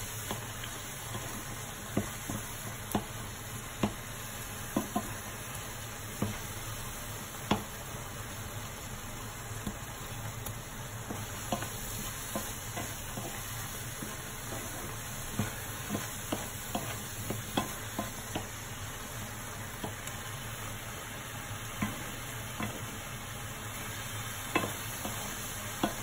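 Wooden spoon stirring a thick, steaming rice and minced pork mixture in a pan on the stove, with a steady sizzle of the mixture coming to the boil and irregular knocks and scrapes of the spoon against the pan.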